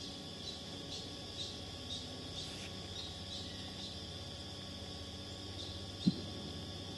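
Insects trilling steadily and high-pitched, with short chirps repeating about twice a second through the first half. A single brief low thump sounds about six seconds in.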